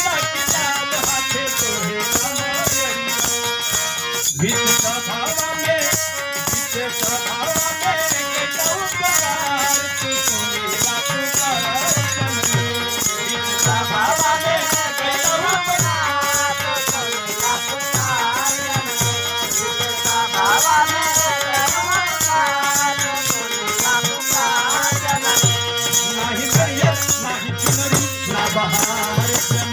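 A man singing a Bhojpuri devotional song (vandana geet) through a microphone over folk-music accompaniment, with held instrumental tones and a fast, steady rattling percussion beat.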